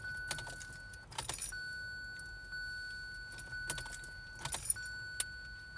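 Car keys jangling against the ignition of a 2017 Kia Sorento as the key is turned again and again, with a dashboard warning chime ringing about once a second. No engine cranks or catches: the car won't start.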